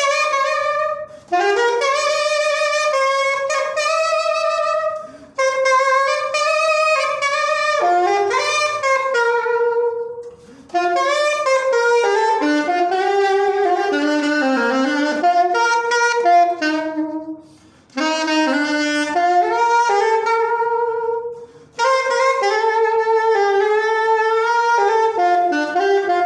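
Saxophone playing a melody on its own, in phrases broken by five short pauses for breath.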